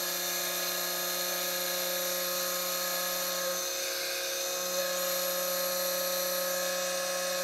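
Brushless motor of a DIY tool post grinder running steadily at about 1,200 rpm on a VESC speed controller: a steady electric hum and whine made of several level tones. The hum wavers briefly about halfway through. The motor has a little run-out.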